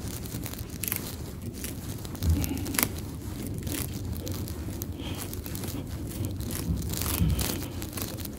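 Root rake scratching and tearing through the dense fibrous roots of an air-layered Yoshino cherry, loosening old potting soil: irregular scraping strokes with crackling clicks, and a couple of dull thumps.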